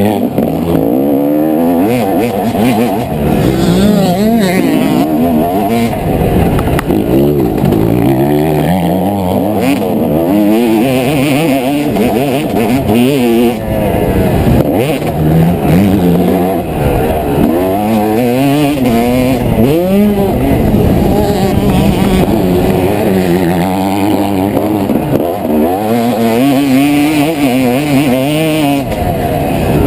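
2016 Yamaha YZ250 two-stroke motocross engine ridden hard, its pitch rising and falling every second or two as the throttle is opened and shut. Wind rushes over the helmet-mounted microphone.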